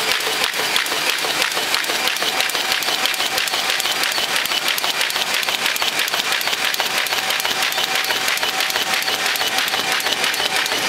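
Diploma 4z3x automatic paper folding machine running at production speed, folding and inline-gluing 8-page brochures: a steady, dense clatter of rapid clicks.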